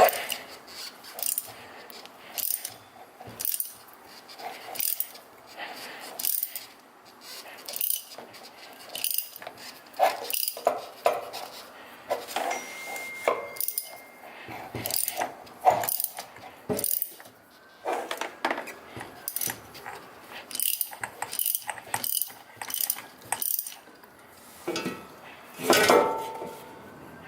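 Hand-tool work on a removed stock manual shifter assembly: a ratchet wrench clicking in short strokes, mixed with clinks of metal parts, in an irregular run of one or two sharp clicks a second.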